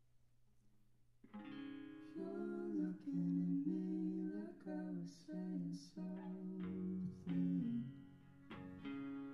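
After about a second of faint hum, a small band starts a song live: strummed acoustic guitar with electric guitar, and singing from about two seconds in.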